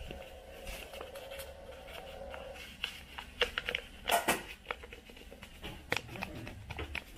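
Paper packets of hunkwe (mung bean starch) flour crinkling and rustling as the powder is shaken out into an aluminium pot, with a cluster of sharp crackles around the middle and a few more near the end.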